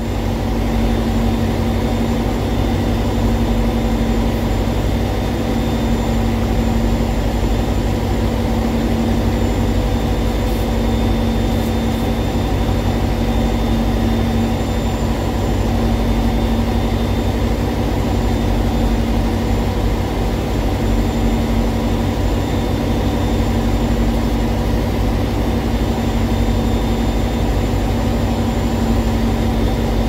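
Diesel engine running steadily at an even idle, with a constant hum.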